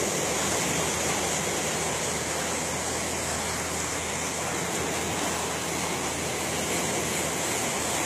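Steady rushing of wind and sea water, with a low steady hum underneath.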